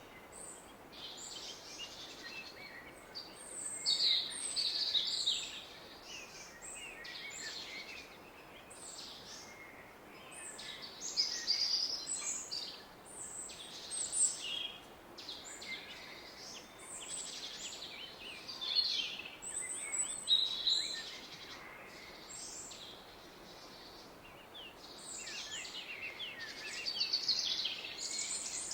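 Woodland birds singing and chirping, many short calls coming and going, over the steady rush of a distant river.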